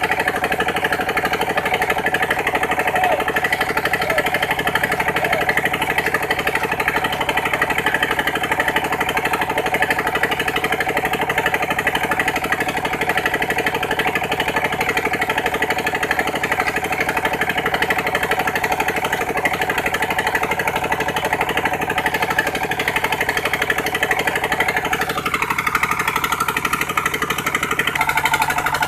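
Engine of a sand suction pump running steadily under load, with a fast even firing rhythm. About three-quarters of the way through a tone glides downward, and the sound shifts just before the end.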